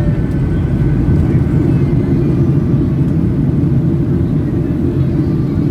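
Boeing 737-800 airliner on its descent and arrival, a loud, steady low rumble.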